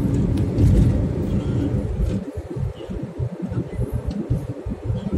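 A car driving, heard from inside the cabin: a low rumble of engine and road noise, heavier for the first two seconds, then more uneven.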